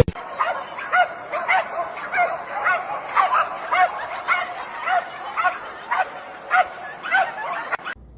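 A dog yipping repeatedly, about two short rising-and-falling yips a second, stopping suddenly near the end.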